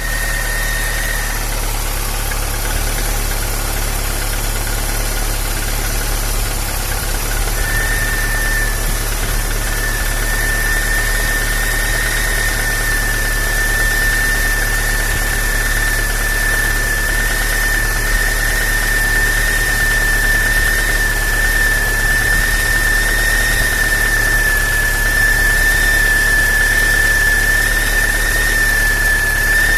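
Car engine idling with a steady high-pitched whistle from the water pump: its plain bearing has corroded and whistles even though the shaft has no play. The whistle drops out about a second in and comes back around eight seconds in.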